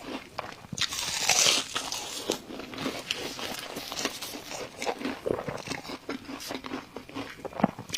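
Close-miked eating: food being bitten and chewed with crunching and irregular wet mouth clicks, a louder crackly bite about a second in.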